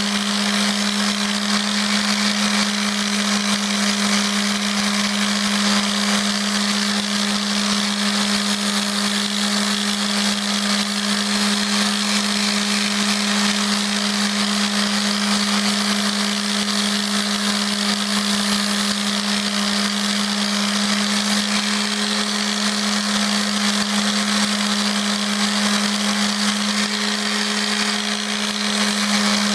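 Electric mouse (detail) orbital sander running steadily, a constant hum over the hiss of its sanding pad working a balsa wood dragster body.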